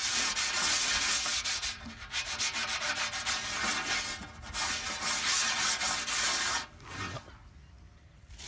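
Fish being rubbed and dragged across a large metal platter: a run of quick scratchy scraping strokes with short pauses, stopping abruptly about seven seconds in.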